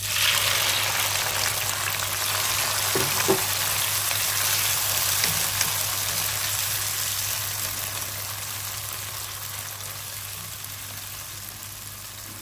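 Diced cherry tomatoes hitting hot olive oil and browned garlic in a frying pan, sizzling loudly at first, then slowly dying down as they are stirred with a wooden spatula. There are a couple of light knocks about three seconds in.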